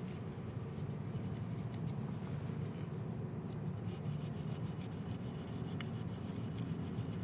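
A microfiber towel rubbing metal polish by hand into chrome lug nut covers: a quiet, scratchy rubbing, with a few light scraping ticks between about four and six seconds in, over a steady low hum.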